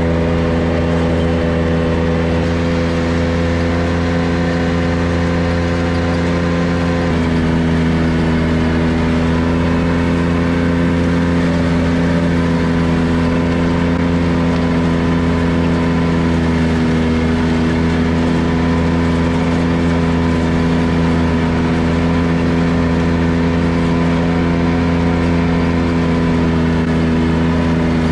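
Ventrac 4500Z articulating tractor's Kubota gasoline engine running steadily under load while its front-mounted Tough Cut deck mows tall grass and brush. The engine note shifts slightly about seven seconds in.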